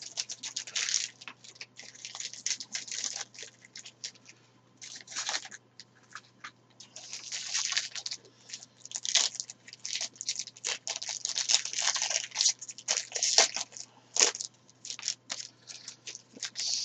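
A trading-card pack's wrapper torn open and crinkled, and the cards inside handled, in irregular bursts of crisp rustling and crackling with small clicks.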